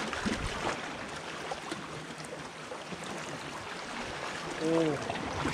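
Sea water washing steadily against shoreline rocks, with a short vocal sound from a man about four and a half seconds in.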